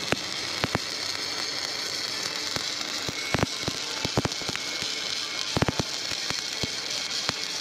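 Stick (shielded metal arc) welding with a 3.15 mm E7018 electrode laying the final cap pass on a pipe joint: a steady arc hiss and crackle with scattered sharp pops.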